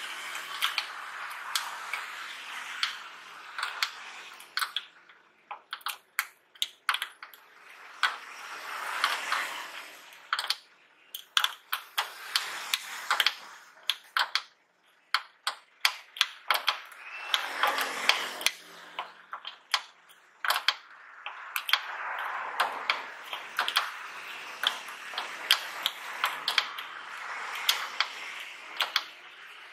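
Hand tools working on a tailgate gas strut's upper mount. A flat screwdriver prying at the strut's ball-socket end fitting makes many sharp metallic clicks and taps, some in quick runs. Several stretches of a steady rushing noise come between them.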